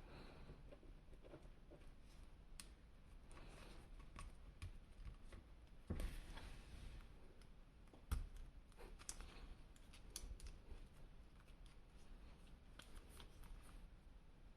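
Faint handling of action-figure toy packaging: scattered small clicks and rustles, with two louder knocks about six and eight seconds in.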